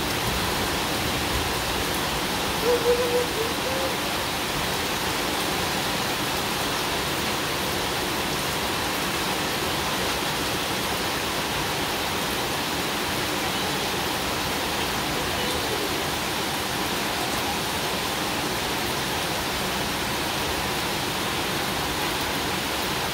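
Heavy rain falling steadily on a concrete driveway and garden plants, an even hiss, with a brief louder sound about three seconds in.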